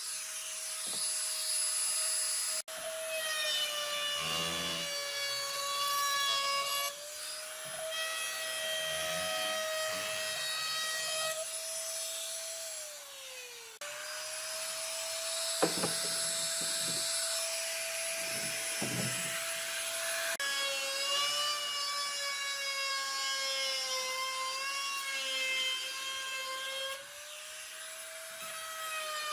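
A high-speed electric power tool whining as it cuts or grinds wood. Its pitch sags and recovers under load, with scraping from the wood. The sound breaks off and restarts at several edits, and one run winds down in pitch near the middle.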